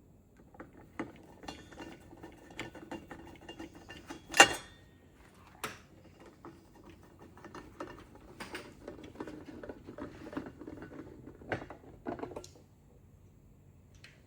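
Scattered small clicks and knocks as the Schlage keypad deadbolt's metal and plastic parts are handled, with one sharp click about four and a half seconds in.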